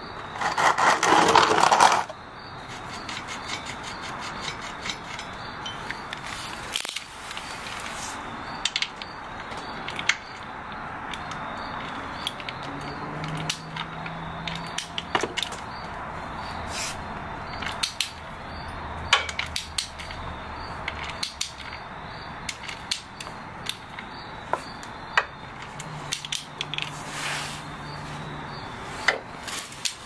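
Hand tools working on a motorcycle engine: scattered clicks, taps and scrapes of a ratchet and wrench on bolts and metal. About a second in there is a short, loud rushing noise lasting a second or two.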